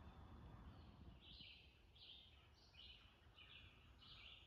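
Faint bird song over quiet outdoor background: a single bird repeats a short high note about six times, starting about a second in, at a steady pace of roughly one to one and a half notes a second.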